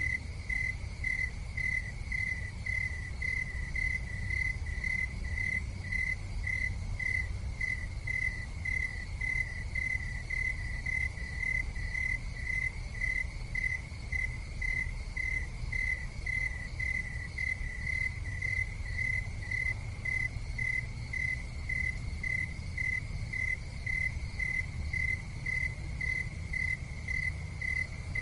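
A cricket chirping steadily, a short high chirp repeated about two to three times a second without a break, over a steady low rumble.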